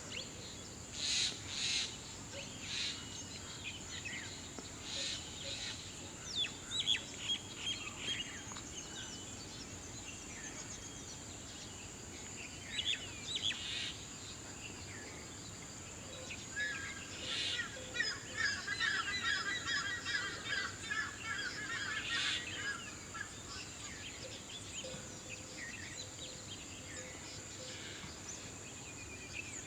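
Small birds chirping and calling in scattered bursts, with a run of rapid trilling chirps from about a third to three-quarters of the way through. A steady high-pitched whine sits underneath throughout.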